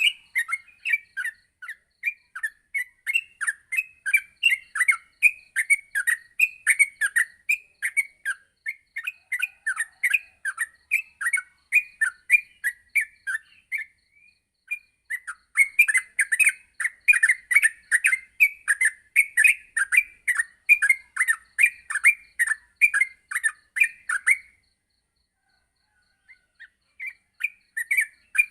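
Yellow-vented bulbul (trucuk) singing a fast, continuous run of short chirping notes, two to three a second. This is the rapid 'ngropel' song used as a tutor recording for caged birds. The song breaks briefly about halfway through and pauses for a couple of seconds near the end before starting again.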